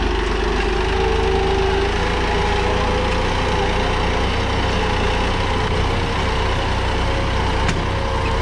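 Massey Ferguson 9500 tractor's diesel engine running steadily under load as it pulls a three-bottom mouldboard plough through the soil at full depth.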